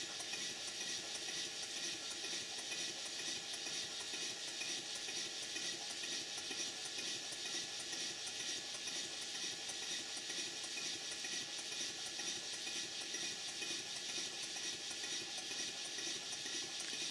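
Large twin-cylinder model steam engine running steadily: an even, fast mechanical clatter from its cranks and valve gear over a steady hiss.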